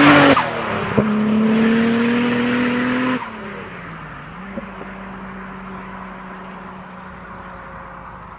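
Turbocharged car engine held at raised revs with a single sharp pop about a second in, then dropping back to a steady idle after about three seconds.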